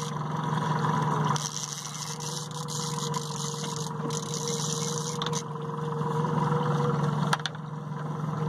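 Boat motor running with a steady low hum, and a few light knocks.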